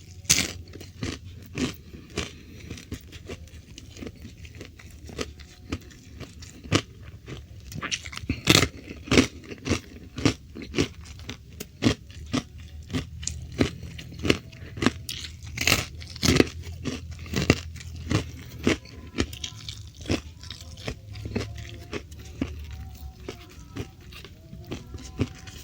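Close-miked crunching and chewing of crispy fried food, with sharp bites coming irregularly, often several a second.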